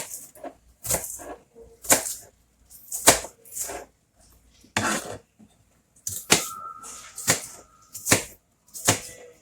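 Kitchen knife cutting onions and bell peppers into cubes on a cutting board: sharp knocks of the blade on the board, about one a second, in an uneven rhythm.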